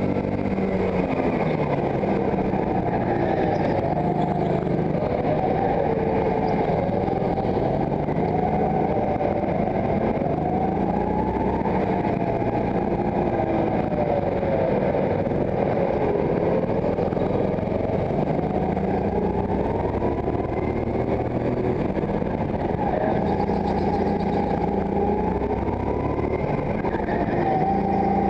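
Go-kart engine heard onboard, revving up and dropping off over and over as the kart laps the track, its pitch rising and falling with speed over a steady rumble.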